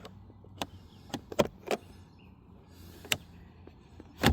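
Five sharp plastic clicks, about a second apart, from the 2017 Lincoln MKX's electric glove box release button and latch actuator as the button is pressed. The latch clicks but does not pop the door, which the owner takes for a latch solenoid that no longer has the strength.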